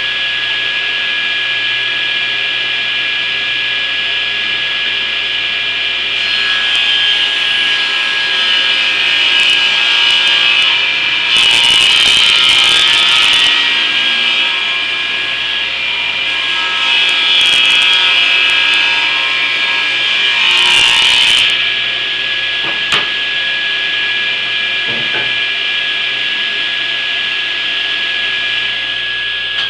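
Table saw motor running with a steady whine while a 2x3 stud is ripped along the fence. Two cutting passes, a longer one about a fifth of the way in and a shorter one past the middle, raise a louder, harsher sawing noise over the motor as the blade goes through the wood.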